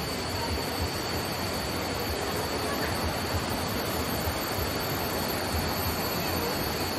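A fast, shallow stream rushing over rocks: a steady rush of water with no breaks. A thin, steady high-pitched whine runs underneath it.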